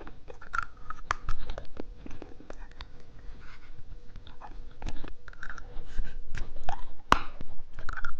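Close-up chewing of watermelon bubble gum: irregular sticky, wet mouth clicks and smacks, with a sharper click about seven seconds in.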